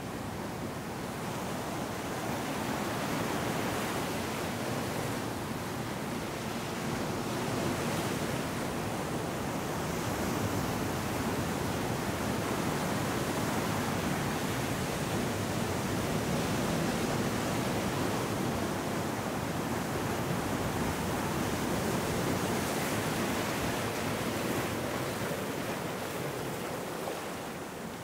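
Ocean surf washing in over rocks and sand: a steady rush of breaking waves and foam, swelling a few seconds in and easing near the end.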